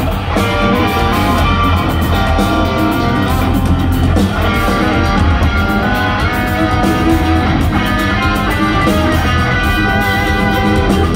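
Loud live instrumental progressive metal from two electric guitars and a drum kit, the guitars playing dense pitched lines over a steady low end without a break.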